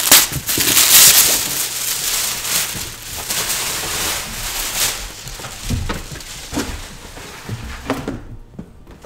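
Tissue paper being pulled off a cardboard figure box and crumpled, a loud crackling rustle for the first few seconds that then dies down, followed by a few soft knocks as the box is handled.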